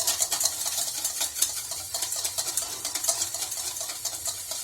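Hand whisk beating curd, a fast rhythmic scraping and clicking of the whisk against its container, the first step of making buttermilk.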